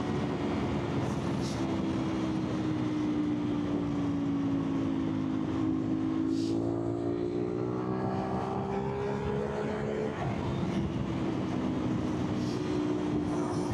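CFMOTO 450SR motorcycle's 450 cc parallel-twin engine running under way, with road and wind noise. Its pitch sags a little about a third of the way in, rises steadily to a peak near three quarters of the way through, then drops back to a steady note.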